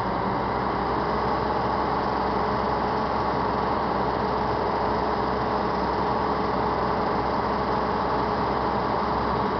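Heavy truck's diesel engine running steadily at low speed, a constant drone with no changes.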